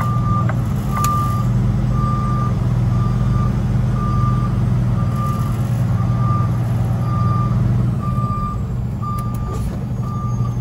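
Reversing alarm beeping steadily, about one beep a second, over the low, steady run of a semi truck's diesel engine heard from inside the cab.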